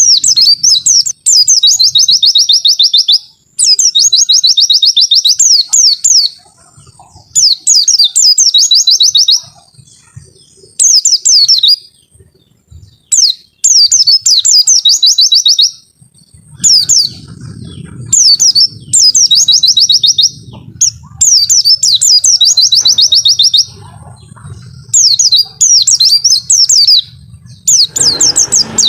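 Pleci (white-eye) singing its long 'wit-wit' song: loud, high-pitched phrases of rapid repeated notes, each one to two and a half seconds long, about ten phrases separated by short pauses.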